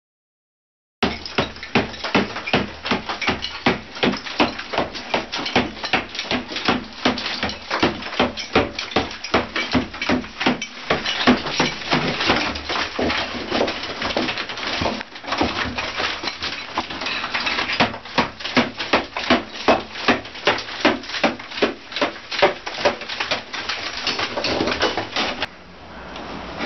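Interior demolition work: rapid, repeated hammering and banging, several blows a second, as walls, fixtures and debris are broken out. The banging stops near the end, leaving a quieter noise.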